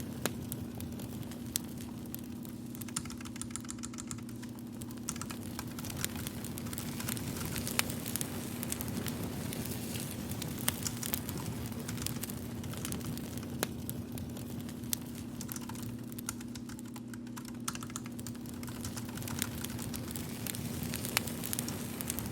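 Typing on a computer keyboard, scattered key clicks over a steady low hum, with a crackling fire in the background.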